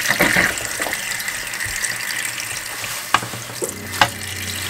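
Tap water running in a steady stream onto stinging nettles in a stainless-steel colander. Near the end, metal tongs turning the leaves knock twice against the colander.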